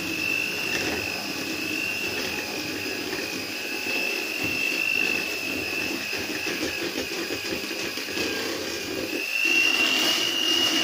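Handheld electric mixer running steadily with a high motor whine, its beaters churning cake batter in a stainless steel bowl. The whine rises a little and grows louder near the end.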